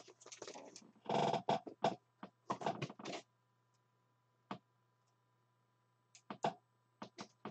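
Trading cards being handled at close range: a run of short rustles and scrapes in the first three seconds, a single click about halfway, and a few more brief rustles near the end.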